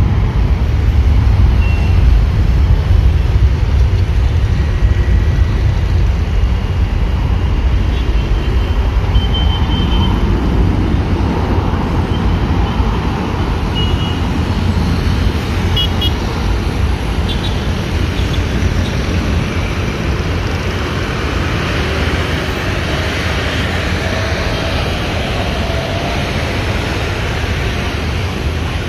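Airbus A330 twin jet engines at takeoff power: a loud, steady, deep rumble as the airliner rolls down the runway and climbs away, slowly fading.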